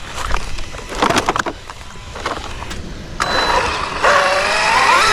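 Losi Super Rock Rey RC truck driving: a few short knocks and rattles early on, then its brushless electric motor whining and rising in pitch as it accelerates over the last two seconds.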